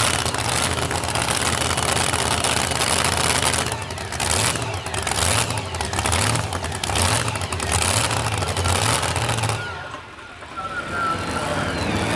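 Supercharged V8 of a modified two-wheel-drive pulling truck running loud and rough, with an uneven pulsing beat. It drops away about ten seconds in, and another engine with a thin whistling tone follows.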